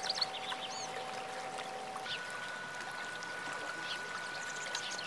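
Calm background music: sustained tones that shift to a higher pitch about two seconds in, over a bed of flowing water with short high chirps.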